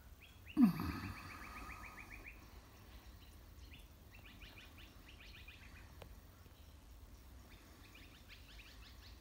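Birds chirping in bursts of fast, rapidly repeated notes, several times. About half a second in, a sudden louder call sweeps down in pitch and is the loudest sound.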